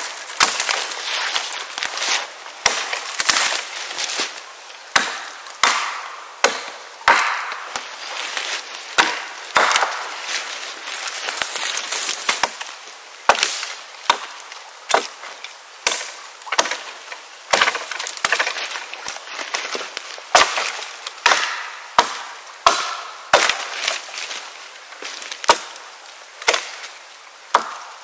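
Wood being chopped with a bladed tool: a long run of sharp strikes, roughly one to two a second at an uneven pace, each followed by a short splintering rustle.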